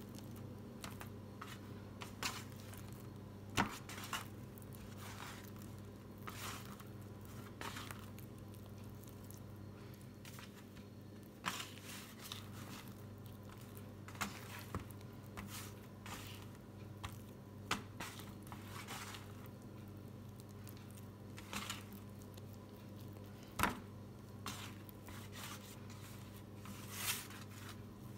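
Hands folding and shaping a sticky 100%-hydration pizza dough ball on a steel tray for reinforcement folds: faint, scattered squishy handling noises with occasional sharper clicks and scrapes against the metal. A steady low hum runs underneath.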